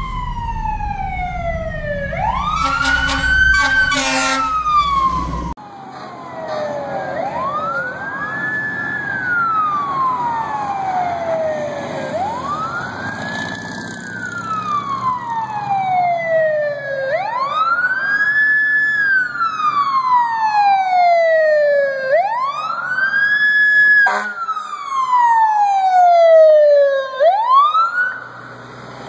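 Fire engine siren wailing in slow rising and falling sweeps, one about every five seconds. In the first few seconds it is heard over road rumble, with a run of short stuttering blasts.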